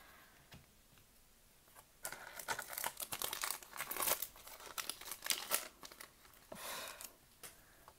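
A Pokémon card booster pack wrapper being torn open and crinkled by hand, starting about two seconds in and crackling for a few seconds, with a shorter crinkle near the end.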